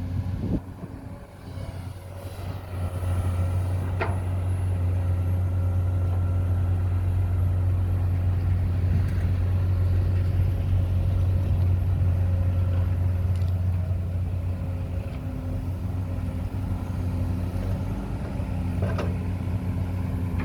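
Excavator engine running steadily with a low hum. Its level dips briefly at the start, then picks up about two seconds in and holds. A couple of faint clicks sound over it.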